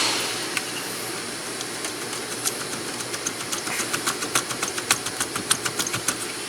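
Hand tool backing out the screws that hold a steering-column multifunction switch, heard as a run of sharp clicks that begins a couple of seconds in and comes several times a second.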